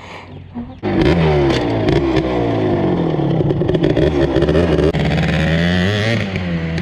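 Two-stroke off-road engine revving close by. It comes in suddenly about a second in, and its pitch rises and falls repeatedly as the throttle is worked.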